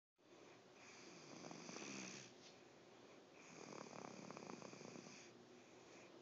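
Faint snoring: two long, breathy snores with a fluttering rattle, one starting about a second in and the next a couple of seconds later.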